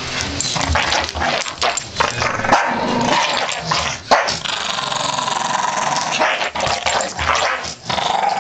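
Two Staffordshire bull terriers growling continuously while they play tug-of-war with a blanket, with a couple of sharp barks. This is play growling, not a real fight.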